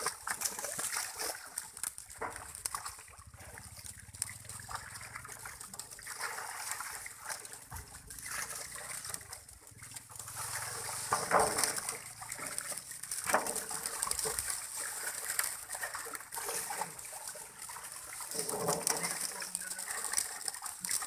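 Harvested fish thrashing and splashing in shallow water inside a net enclosure, with irregular slapping and sloshing of water. Two louder splashes about halfway through.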